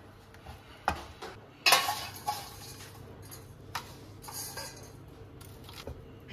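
Kitchen utensils knocking and scraping on cookware: a pan tipped and scraped over a serving plate, and a metal spoon dishing rice onto it. A few sharp knocks, the loudest about two seconds in, then a short scraping stretch.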